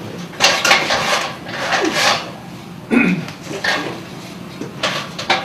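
Aluminium extension ladder being handled and set against a wall: a string of irregular metallic knocks and rattles with scraping between them.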